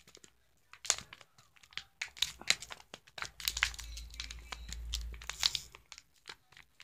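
Empty plastic water bottle crackling and crinkling as it is wrung tighter and tighter by hand, squeezing the air inside under the loosely fitted cap so that the cap will pop off. Quick sharp crackles throughout, with a low rumble for about two seconds in the middle.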